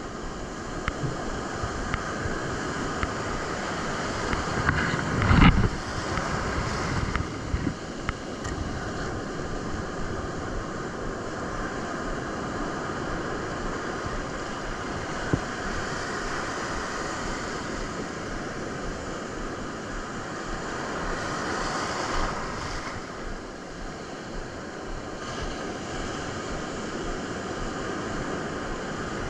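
Ocean surf breaking and washing on a beach, a steady roar of water with wind rumbling on the microphone. A loud thump about five seconds in, and the surf swells again around twenty-two seconds.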